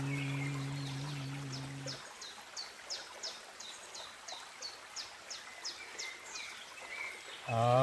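A man's low, steady humming chant held on one note stops about two seconds in. Then a bird gives a quick run of short, high, falling notes, about three a second, over the murmur of a creek. The hum starts again near the end, sliding up briefly into the note.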